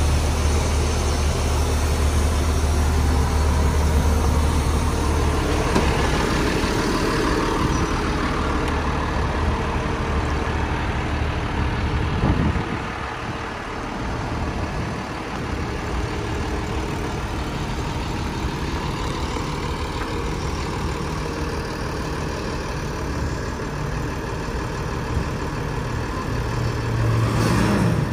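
Engine of a 2017 Crane Carrier LET2 rear-loader garbage truck idling with a steady low hum. It drops to a quieter level about twelve seconds in.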